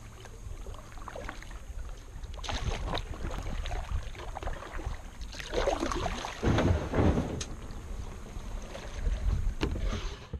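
Wind buffeting the microphone with a steady low rumble, while a kayak paddle splashes through the water in uneven strokes, loudest in the second half.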